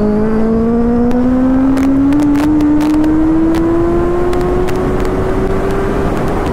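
Motorcycle engine accelerating hard in one gear, its note rising slowly and evenly as the bike gathers speed on a long pull.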